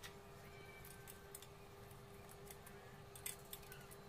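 Faint, scattered small metallic clicks and ticks, a few in all with the sharpest a little past three seconds in, over a low steady hum: small hardware and a hand tool handled while fitting an aluminium motorcycle top-box base plate.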